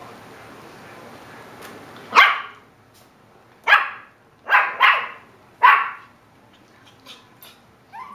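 A dog barking: five short, sharp barks spread over a few seconds, starting about two seconds in, with two of them coming in quick succession in the middle.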